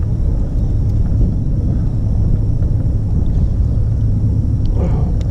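Steady low rumble of wind buffeting a camera microphone out on open water.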